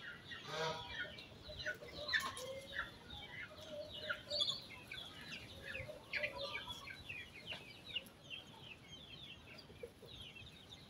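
A flock of chickens clucking while feeding, with many short high chirps throughout and one louder call about half a second in.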